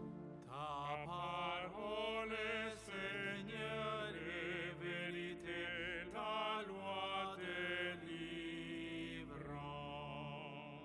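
A solo voice sings a slow chant with vibrato over sustained pipe organ chords; the organ is heard alone for the first half second before the voice comes in.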